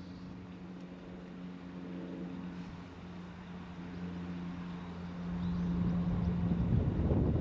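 EF66 electric locomotive approaching with a steady hum that grows louder, then the rumble of the freight train passing close by starts about five and a half seconds in.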